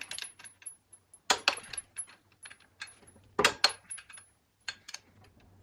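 Small metal objects clinking and clattering as they are handled, in irregular clicks, with two louder clatters just over a second in and about three and a half seconds in.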